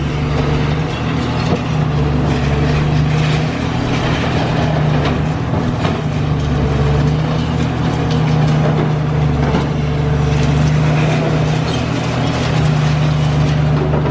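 Heavy diesel excavator engine running steadily with a deep, even hum, with a few faint knocks of demolition work.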